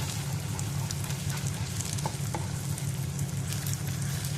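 Egg and banana sizzling in ghee in a frying pan while being stirred and scrambled, with small scraping clicks from the spatula. A steady low hum runs underneath.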